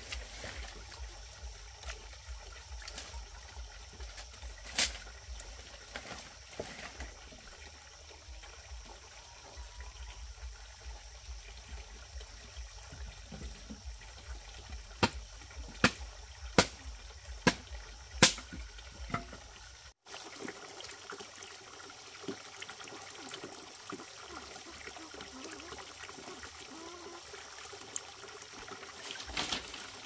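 Water trickling and pouring, with a handful of sharp knocks clustered about halfway through.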